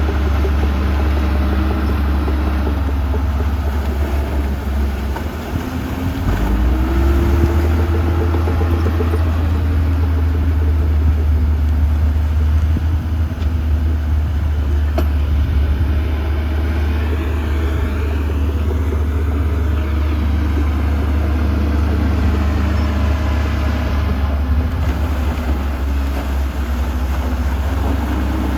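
Heavy diesel engine of earthmoving machinery running steadily with a deep rumble, revving up about six seconds in.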